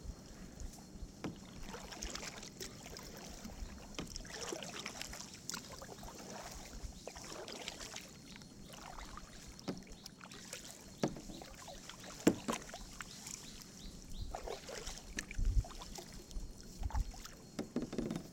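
Canoe paddling: a paddle dipping and splashing in the water in irregular strokes, with a few sharp knocks that are louder in the second half.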